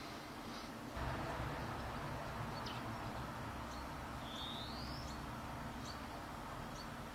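Small songbirds calling: one rising whistled note a little past the middle and a scatter of short high chirps, over a steady low background noise that gets louder about a second in.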